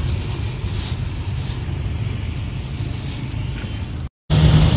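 Steady low engine and road rumble of an angkot minibus, heard from inside the cabin while it drives through traffic. About four seconds in the sound cuts out briefly and comes back as a louder, steadier engine drone.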